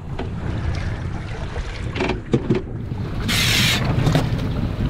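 Wind on the microphone and sea water washing against a boat's hull under a steady low rumble, with a few light knocks about two seconds in. A brief loud splash comes about three and a half seconds in as a hooked mangrove snapper is lifted from the water alongside.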